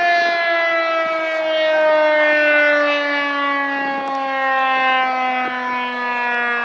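Federal Signal STH-10A outdoor warning siren winding down: its wail slides slowly and steadily lower in pitch.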